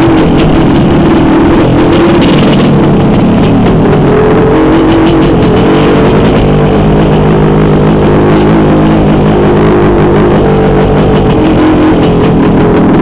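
Honda CR500 two-stroke motocross bike engine under way, recorded from the rider, loud. The revs rise and fall, hold steady for several seconds in the middle, then change again near the end.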